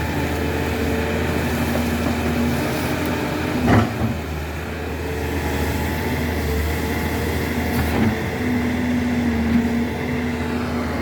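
Backhoe's diesel engine running steadily, with a higher steady tone that comes and goes above the engine hum. A sharp knock about four seconds in and a lighter one about eight seconds in.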